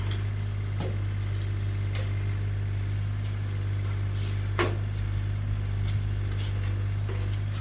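A steady low hum with a few sharp knocks over it, the loudest a little past halfway.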